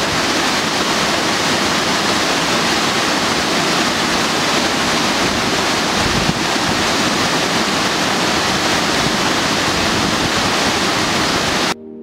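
Loud, steady rush of water jetting from an outlet in a dam's concrete face and crashing into the pool below. It cuts off suddenly near the end.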